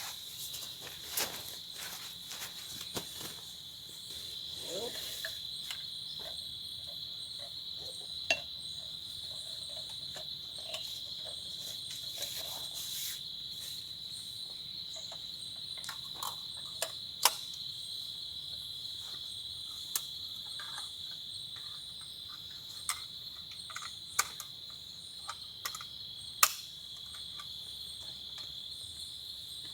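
Insect chorus, crickets trilling in one steady high-pitched drone, with scattered sharp clicks and knocks throughout.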